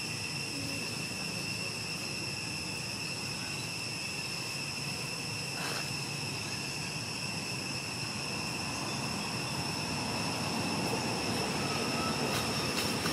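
Forest ambience: a steady high-pitched insect drone. A low rumble swells in from about ten seconds in, like a distant aircraft passing over.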